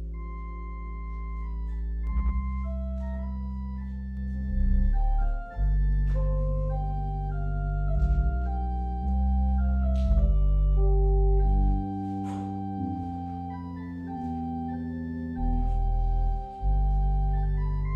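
Organ playing a slow piece in sustained chords, with long-held bass notes underneath and a melody moving above them; the sound briefly drops twice as the chords change.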